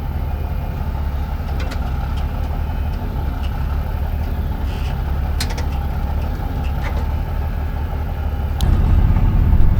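A truck engine running steadily at low revs, with a few sharp clicks. It gets louder near the end.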